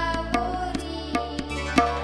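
Background music: a steady rhythm of drum strokes over held, sustained chords.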